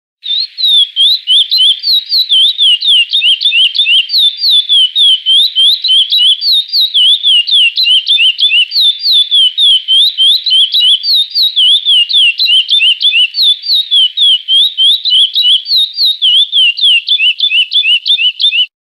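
Curió (chestnut-bellied seed finch) singing the 'Praia Clássico' song: one long unbroken run of quick, clear whistled notes sliding up and down, which stops suddenly just before the end.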